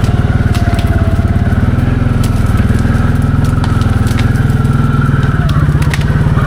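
Can-Am 700 XMR ATV's V-twin engine running steadily at low revs, its note shifting slightly about five seconds in, with scattered sharp cracks and ticks over it.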